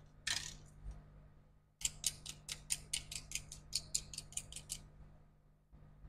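A quick run of about fifteen short, crisp scratching strokes, around five a second, lasting about three seconds, from a hand tool working at the repair bench, with one brief scratchy noise just before.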